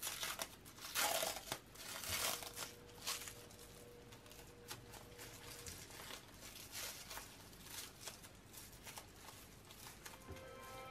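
Sandwich wrapping crinkling and tearing as it is peeled off by hand, a run of crackles loudest in the first three seconds, then softer rustles.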